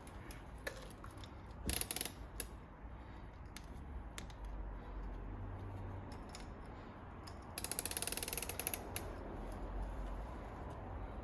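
Rapid ratcheting clicks from the mountain bike's drivetrain as the new chain is worked around the cassette and through the rear derailleur: a short burst about two seconds in and a longer one near the end.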